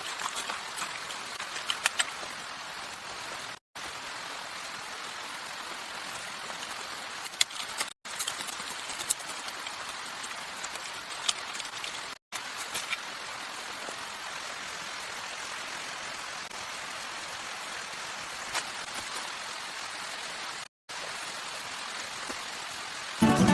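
Steady rain falling, an even hiss with a few faint ticks, cut into several pieces by brief silent breaks. Plucked-string music starts right at the end.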